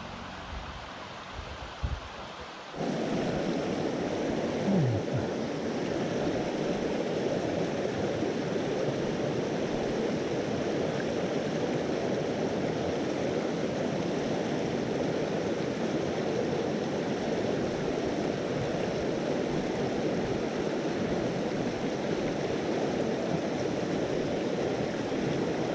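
Mountain stream rushing over rocks and through shallow rapids, a steady, even rush of water that cuts in suddenly about three seconds in. Before it there is a low steady hum and a single thump about two seconds in.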